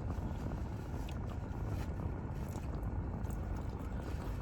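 Close-up chewing and eating, with small faint clicks over a steady low hum from the car.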